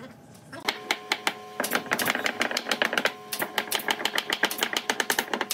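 A wooden mallet tapping rapidly and lightly on a wooden frame, several taps a second, starting about half a second in, to seat the frame's joints.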